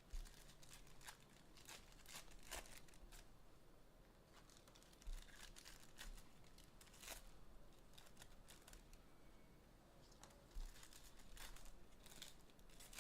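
Faint crinkling and tearing of foil trading-card pack wrappers being opened, with scattered small crackles and a few soft thumps as the cards are handled.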